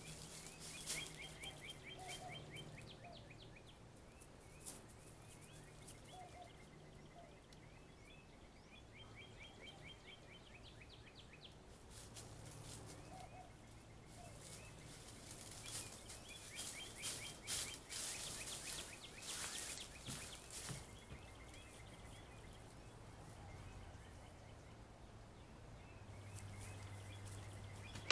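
A songbird singing faintly, in repeated phrases of quick, evenly spaced chirping notes every few seconds. Near the middle come bursts of sharp rustling and crackling clicks, with a steady low hum underneath.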